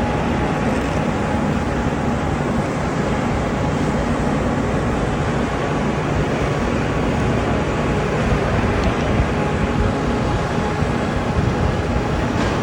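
Steady machinery rumble of heavy construction equipment running, with a few faint steady tones in it.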